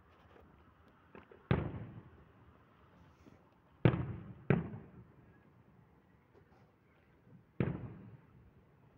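Aerial firework shells bursting: four sharp bangs, the second and third close together, each trailing off over about a second.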